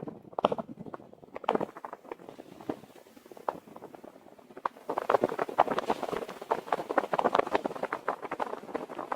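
Packed snow crunching and crackling in quick, irregular clicks, sparse at first and much denser from about five seconds in.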